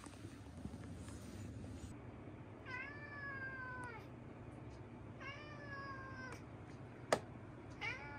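Young orange tabby cat meowing three times, each a drawn-out call of about a second that rises slightly at the start and then holds steady. Rustling in the first two seconds and a single sharp click just before the third meow.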